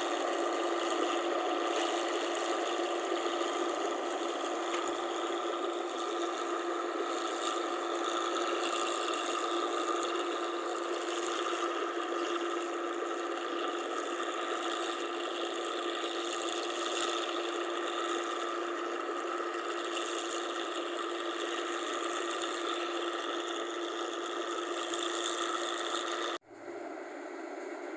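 Rice combine harvester running, a steady mechanical clatter with a constant hum. It breaks off abruptly about 26 seconds in, and a quieter steady running sound follows.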